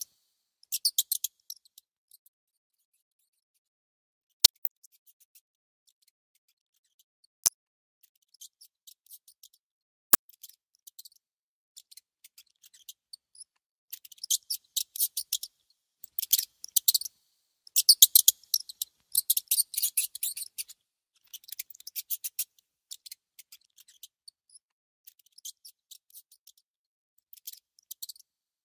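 A mouse nibbling food: bursts of rapid, crisp, high-pitched clicks, with three lone sharp clicks in the first third.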